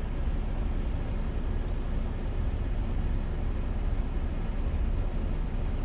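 Steady low rumble of an idling truck, heard inside the cab.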